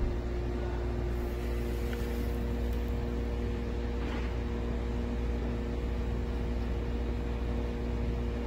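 Steady low mechanical hum with a few constant tones, the drone of a running machine. A couple of faint clicks come through about two and four seconds in.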